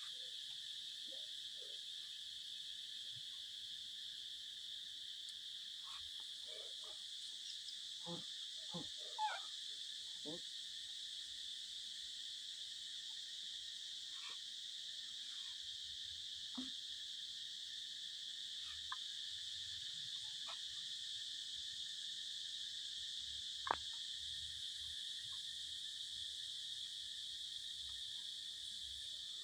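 Steady high-pitched drone of insects, faint, with a few short faint calls near the middle and a single sharp tick later on.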